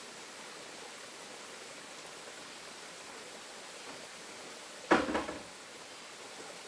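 Steady rushing hiss of running water, with one sharp knock of something hard about five seconds in that rings briefly.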